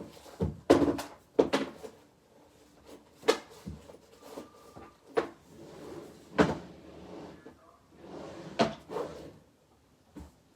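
Small objects and containers being rummaged through and handled close up: an irregular string of about a dozen knocks, clicks and clatters with rustling in between.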